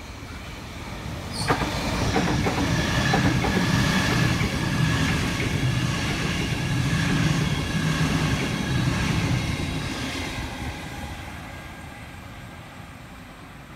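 Sydney Trains Waratah double-deck electric train passing close by. It swells to full loudness about two seconds in, with a few sharp clacks of wheels over rail joints, a low rumble and a steady whine, then fades as it draws away.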